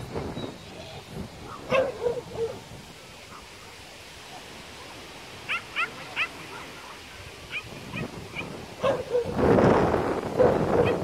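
A dog whining and yipping in short, high-pitched bursts, with three quick falling yips about halfway through. A louder stretch of noise runs near the end.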